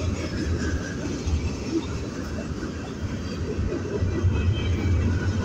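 Freight cars of a passing manifest train rolling by: a steady low rumble of steel wheels on the rails.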